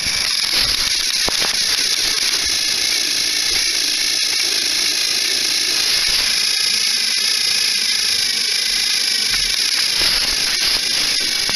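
Two battery-powered Thomas & Friends toy engines pushing against each other on plastic track, their small motors and gears running together as one steady, high whirring noise.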